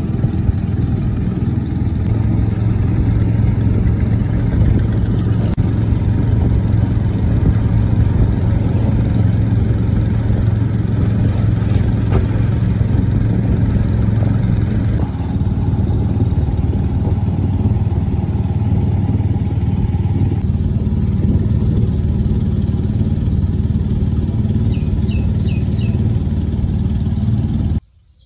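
An engine running steadily with a low hum, then cutting off suddenly near the end.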